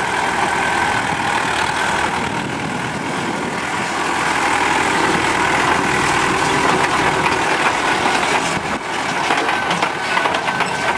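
Diesel engine of a TAFE tractor backhoe loader running steadily as the machine moves about, getting a little louder from about four seconds in.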